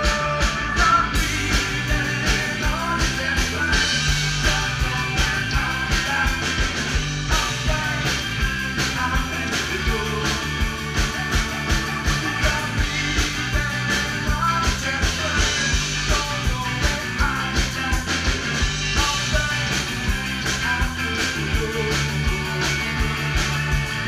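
Live rock band playing through a PA: a drum kit keeping a steady beat under bass and electric guitar.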